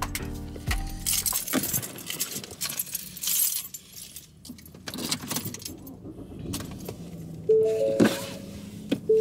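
A bunch of keys jangling, with small metallic jingles and clicks, inside a car. A few notes of background music sound at the start and again near the end.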